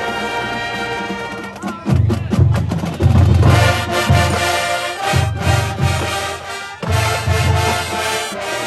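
High school marching band playing on the field: held brass chords, then a quick run of drum strokes, and from about two seconds in a heavy low beat of bass drums and sousaphones under the horns.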